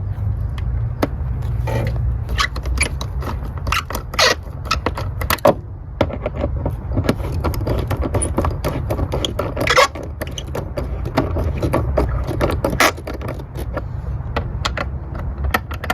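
Irregular metallic clicks, clinks and scraping of a 10 mm socket wrench working the hose clamps on the air-intake boot, over a steady low hum.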